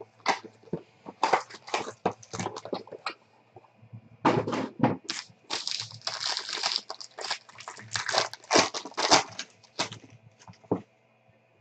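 Foil trading-card pack from a 2016 Playbook football box being handled and torn open by hand: a string of sharp crinkles and clicks, with a longer crinkling tear about six seconds in.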